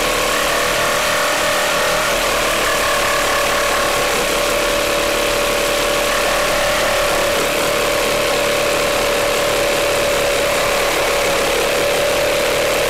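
Makita JR3050T corded reciprocating saw running flat out under load, its blade sawing through a thick nailed timber beam: a steady motor whine over the noise of the cut.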